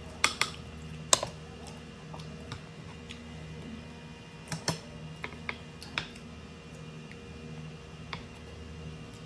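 Metal spoon and chopsticks clinking and scraping against ceramic plates while scooping rice: a few sharp clicks, the loudest two near the start and just after a second in, a small cluster around the middle, over a steady low hum.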